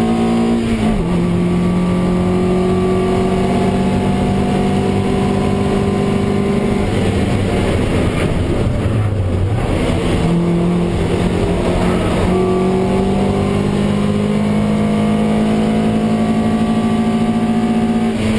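Toyota MR2 Roadster race car's four-cylinder engine running hard, heard from inside the cockpit over wind and tyre noise. An upshift drops the pitch about a second in. Around the middle the note breaks up as the driver lifts and shifts down for a corner. Then the engine pulls with its pitch slowly rising, and a further shift drops it right at the end.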